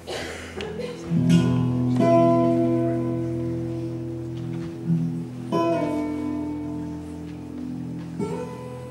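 Slow acoustic guitar music: chords struck a few seconds apart, each left to ring out and fade.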